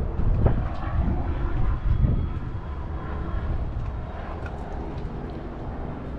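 Wind rumbling and buffeting on the microphone, with a couple of soft thumps about half a second and two seconds in.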